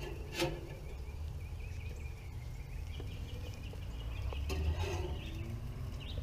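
Metal grill tongs click once against the grill grate about half a second in, over a steady low outdoor rumble. A second, fainter click comes past the middle.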